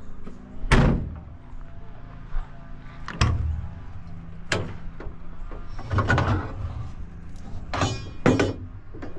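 Metal compartment doors on a utility truck's toolbox body being opened and shut: a series of about six sharp metal bangs and clanks, the loudest about a second in, some with tools rattling inside.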